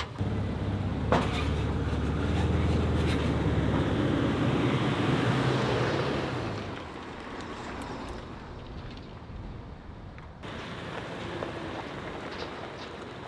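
An SUV towing a flatbed trailer loaded with a side-by-side drives past: engine hum and tyre noise swell over the first few seconds and fade by about seven seconds in, with a light knock about a second in. Fainter road noise follows.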